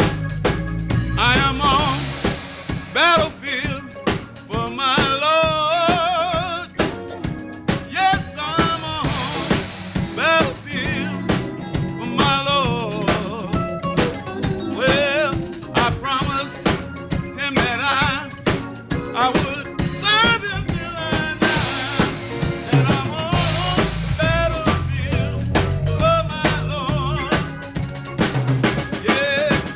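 Gospel band playing an instrumental passage: a drum kit with snare and rimshot hits and bass drum, a bass line, and a lead melody that wavers and bends over the top.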